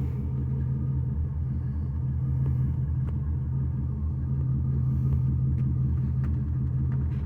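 Corvette engine idling, a steady low rumble.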